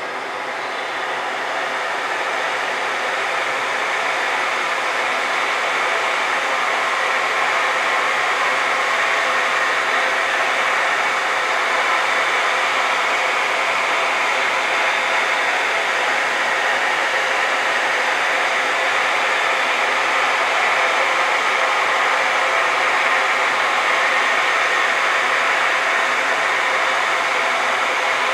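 Loud, steady rushing blower noise that swells over the first few seconds and then holds level. The uploader takes it for the station's blower.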